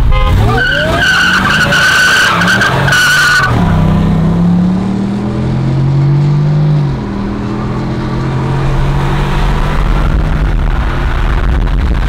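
Ford pickups launching hard from side by side: a steady high tire squeal for about three seconds, then the V8 engines pulling at full throttle, with a step in the engine note and a brief dip about seven seconds in as a gear shifts.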